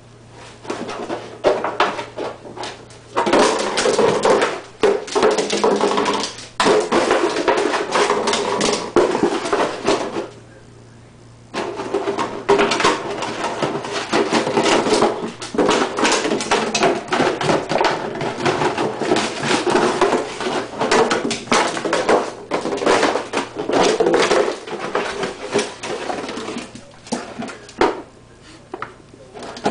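Empty plastic water jug crackling, crinkling and knocking on a tile floor as a puppy bites, paws and shoves it, with a break of about a second near the middle.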